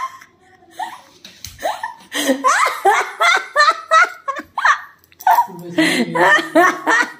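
Laughter: a run of short laughing bursts, rising and falling in pitch, starting about two seconds in.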